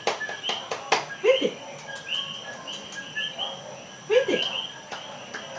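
Small night animals chirping in short high notes, repeated in runs, over a steady high tone. Scattered sharp clicks are heard, and twice, about a second in and near four seconds, a short low falling vocal sound.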